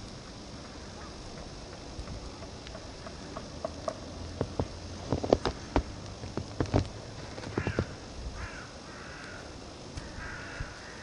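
Steady hiss of wind and falling snow. A cluster of sharp clicks and knocks comes between about 2 and 7 seconds in, and a few short hoarse sounds follow near the end.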